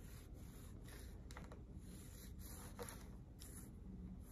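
Faint, intermittent rubbing and scratching of clear vinyl tubing being handled and slid on a tabletop.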